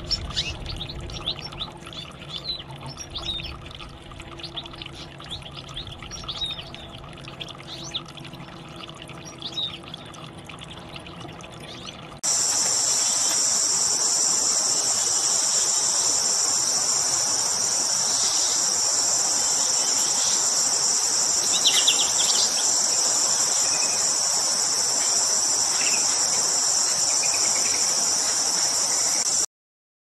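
Goldfinch twittering in quick, short chirps. About twelve seconds in the sound cuts abruptly to a loud, steady, high-pitched insect chorus with a few bird chirps over it, which stops suddenly near the end.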